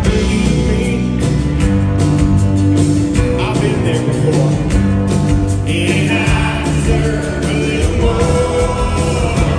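Live rock band playing with a male lead vocal over drums, guitars and keyboards, heard through the venue's PA from within the audience.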